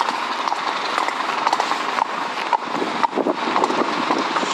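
A Highland pony's hooves clip-clopping on a road at a brisk walk, the strikes coming irregularly over a steady rushing noise.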